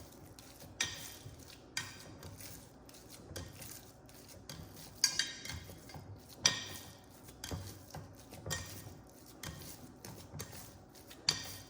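A utensil clinking and knocking against a dish as ground meat is stirred and mixed with a little chicken broth, in irregular knocks about once a second, the two sharpest about five and six and a half seconds in.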